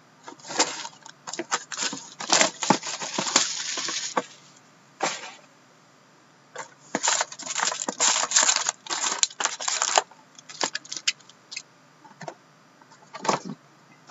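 Plastic shrink-wrap crackling as it is cut and torn off a cardboard box of hockey cards. The box lid is then opened, and the foil card packs rustle and click as they are lifted out and stacked, with scattered lighter clicks near the end.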